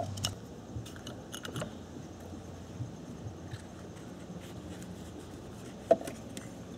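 Light clicks and knocks of hard plastic parts being handled as an ignition coil is pushed into place and its connector worked on, with a cluster of clicks between one and two seconds in and one sharper knock near the end.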